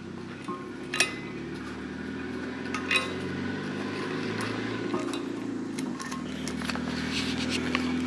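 A few light metallic clinks and knocks as a Wico magneto is handled and set against a metal post, over a steady low hum that grows a little louder.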